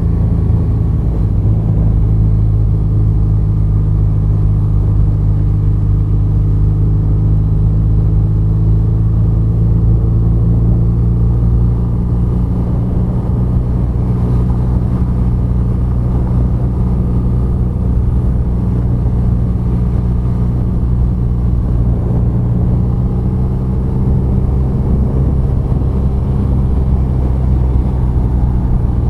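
BMW R nineT's air/oil-cooled boxer twin engine running at a steady road speed, with a deep rumble. Its note eases off a little about twelve seconds in and picks up again in the last several seconds.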